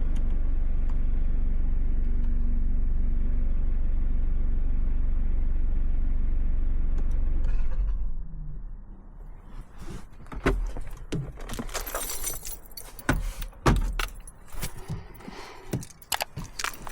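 BMW B48 four-cylinder turbo engine with an M240i exhaust running steadily, then switched off about eight seconds in. Then a scatter of clicks and metallic rattles of things being handled inside the car.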